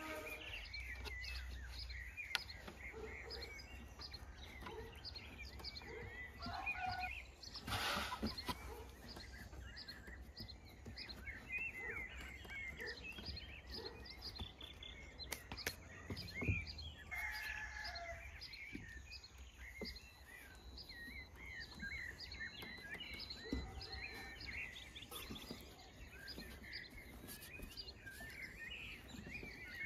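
Small birds chirping throughout, many short quick chirps overlapping one another, with a few soft knocks from hands working dough on a wooden board.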